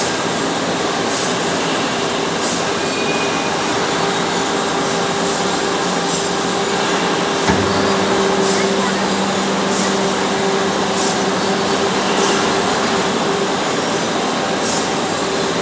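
Vertical hydraulic baling press's power unit running with a steady mechanical hum and hiss. About seven and a half seconds in there is a click, and a lower hum joins the sound.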